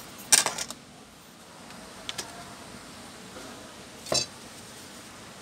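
Plastic screen bezel of an Asus X540 laptop being pressed back onto the lid, its clips snapping into place: a cluster of sharp clicks at the start, two small clicks about two seconds in, and another click about four seconds in.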